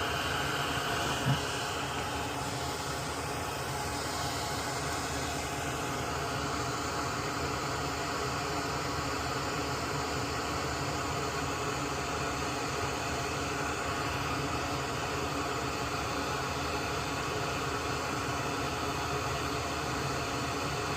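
Steady whooshing noise of a fan-driven machine with a faint hum under it, and one short click about a second in.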